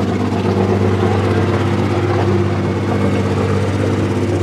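New Holland LS180 skid steer loader's diesel engine running at a steady speed.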